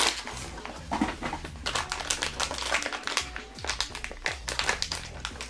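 Foil blind-box bag crinkling and rustling in irregular crackles as it is handled and opened.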